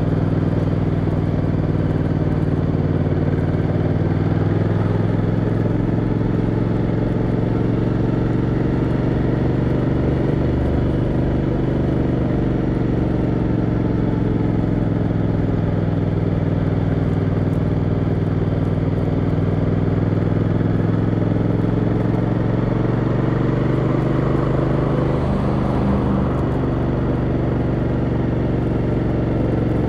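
Motorcycle engine running steadily in third gear at low cruising speed, its pitch dipping and rising slightly as the speed changes.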